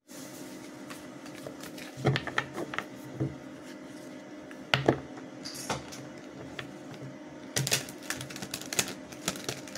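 Irregular clicking and tapping in small clusters, the loudest about two and five seconds in and a busier run near the end, over a steady low hum.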